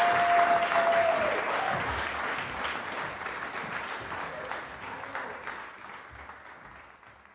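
Audience applause for a string quartet, dying away steadily to near silence. One long held cheer rises over the clapping at the start.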